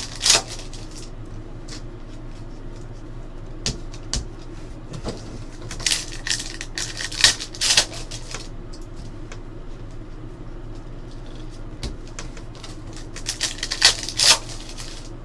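Trading cards being handled and flicked through: several short bursts of card sliding and snapping, over a steady low hum.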